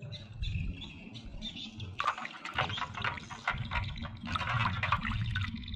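Water sloshing and splashing in a basin as a plastic toy dinosaur is dunked and rubbed clean by hand, with quick splashes coming thick and fast from about two seconds in.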